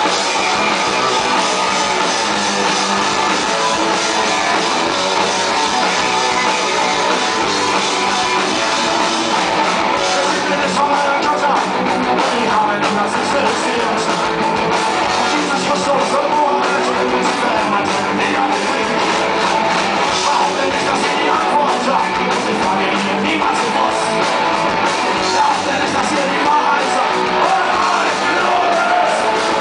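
Punk rock band playing live and loud, with electric guitars, drums and a singer, heard from the audience with little bass.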